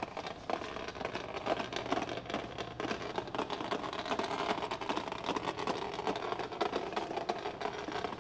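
Caster wheels of a wooden engine dolly rolling over a concrete floor under a Honda B18C engine, with a continuous clatter of rattles and clicks. A steady low hum runs underneath.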